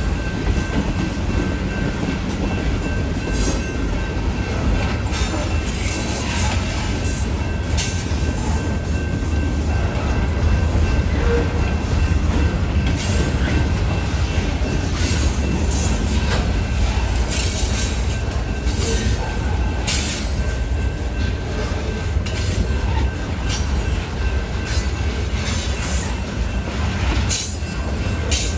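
Union Pacific freight train cars rolling past at a grade crossing: a steady low rumble of wheels on rail, broken by irregular sharp clanks.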